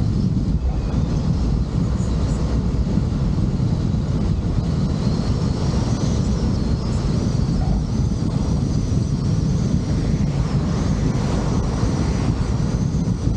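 Steady low rumble of wind and road noise from a vehicle travelling along a road, with no let-up.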